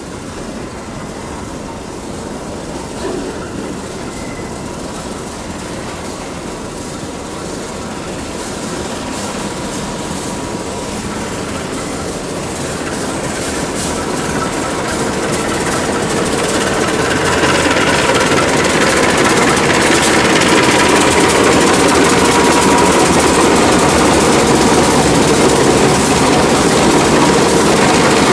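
CC 201 diesel-electric locomotive engine running during slow shunting, growing steadily louder as the locomotive draws close. From about two-thirds of the way in it runs loud and steady, with a steady high whine over the engine note.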